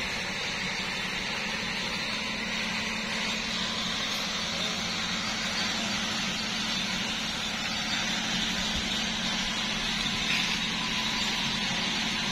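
Steady vehicle engine noise: a constant low hum with a hiss above it, unchanging throughout.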